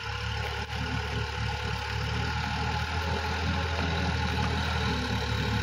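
Sonalika DI-50 RX tractor's diesel engine running with a steady low hum, under a steady hiss of rain.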